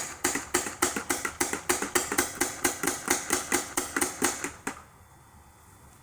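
AGD Automag pneumatic paintball gun firing a quick string of shots, about four a second, which stops about three-quarters of the way through. The gun is cycling and shooting older paint without trouble.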